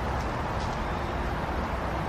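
Steady outdoor background noise: a low rumble with a hiss over it and no distinct event.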